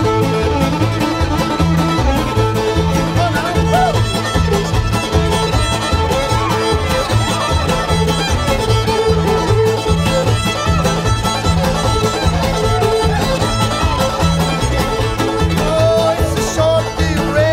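Old-time string band playing an instrumental passage: a fiddle carrying the tune over banjo, guitar and upright bass keeping a steady beat.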